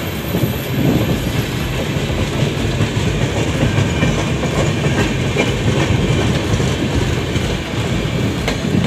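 Passenger train running on the rails, its wheels clattering steadily over the track, heard from inside a moving coach beside a train on the next track.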